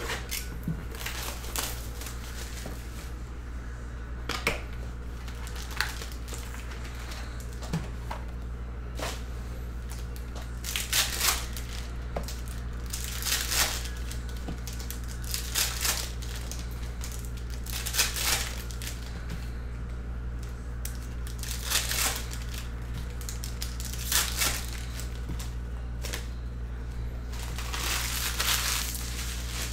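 Foil wrappers of Panini Chronicles Draft Picks football card packs being torn open and crinkled by hand, in short crackly bursts every couple of seconds. A steady low hum runs underneath.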